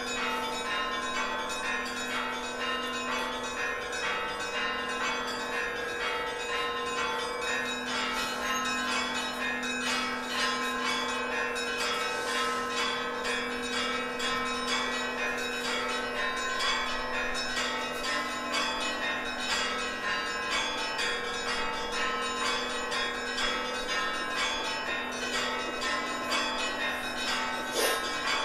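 Orthodox church bells ringing in a continuous, fast peal. Several bells of different pitches are struck in quick succession, and their tones hang on under the strikes.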